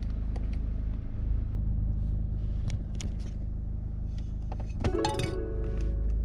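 Steady low rumble of a car, with a few light clicks, under plucked background music that comes back about five seconds in.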